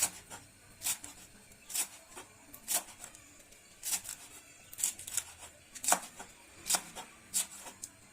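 Kitchen knife slicing a tightly rolled bundle of xương sông (Blumea lanceolaria) leaves on a cutting board: a short, crisp cut-and-tap about once a second, about nine strokes.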